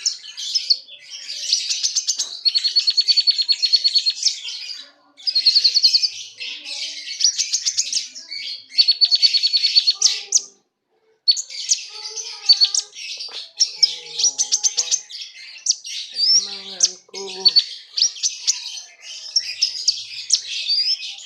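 Konin songbird singing a rapid, high-pitched song of chattering chirps and fast trills, in bursts with a short pause about ten seconds in.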